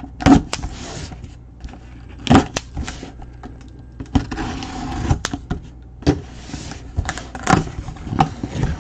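A blade slitting open a sealed cardboard box, with cardboard scraping and rustling and several sharp knocks as the box is handled.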